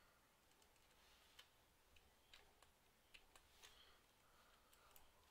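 Near silence with faint, irregular clicks of computer keys and mouse buttons, several of them bunched together past the middle.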